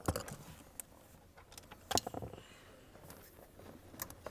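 A few scattered metallic clicks and clinks of hand tools on the brake booster's 13 mm firewall nuts, the loudest about two seconds in.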